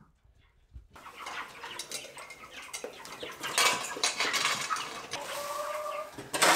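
A shovel scraping and scooping old pine-shaving litter off the brooder floor, starting about a second in, with sharp scrapes near the middle and at the end. Cornish Cross meat chickens call around it, one brief held call shortly before the end.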